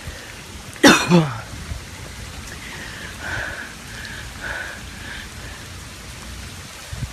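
Steady rushing hiss of floodwater, with a short loud vocal sound about a second in that drops sharply in pitch, and a few faint tones in the middle.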